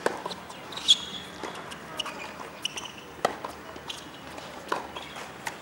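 Tennis rally on a hard court: tennis balls struck by rackets and bouncing on the court, a series of sharp pops about every second, the loudest about a second in.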